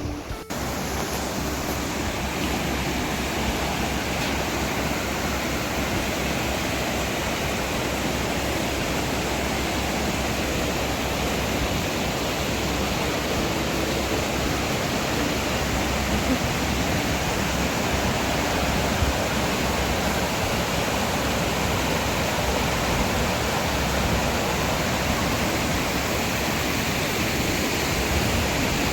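Steady, loud rush of fast-flowing river water over rapids.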